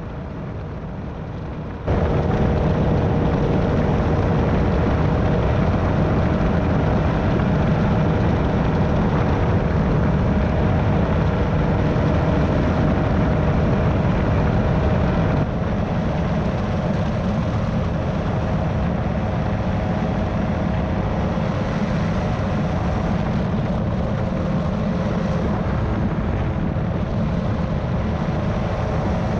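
Airwolf powered parachute's engine and propeller running steadily in flight, mixed with wind rushing past the cart. It gets louder about two seconds in.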